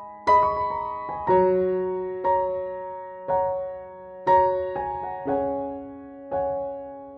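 Slow, gentle piano music: chords struck about once a second, each ringing and fading before the next.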